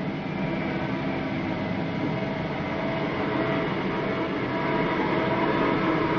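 Old cage lift running up its shaft: a steady mechanical rumble with a faint hum, growing a little louder near the end.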